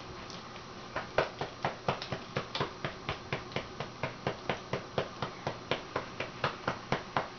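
A hand patting a doll on the back to burp it: quick, even pats, about three to four a second, starting about a second in.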